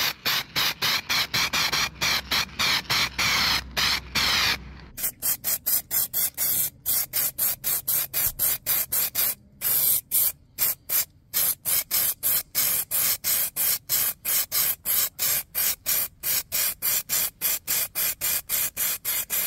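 Aerosol can of leather and vinyl spray paint hissing in rapid short bursts, about three a second.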